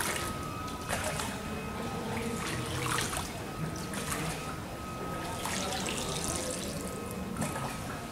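Water splashing and lapping in a canal, in surges every two seconds or so, with a faint steady high tone behind it.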